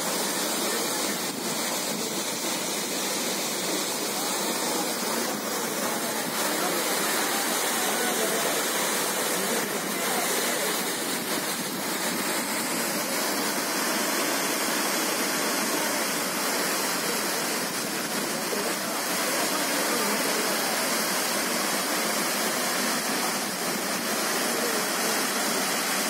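Athirapally Falls, a large waterfall plunging down a rock face into its pool: a steady, even rush of falling water.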